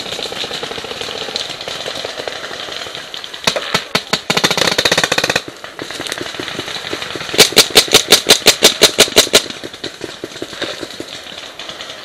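Paintball markers firing in rapid bursts: a quick string of shots about three and a half seconds in lasting some two seconds, then a louder, closer string of about a dozen shots at roughly six a second, a few seconds later.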